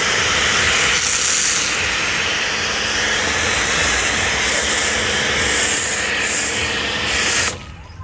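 Foam cannon on a Btali 2200HPW high-pressure washer gun spraying thick snow foam: a steady, loud hiss that cuts off abruptly about seven and a half seconds in as the trigger is released.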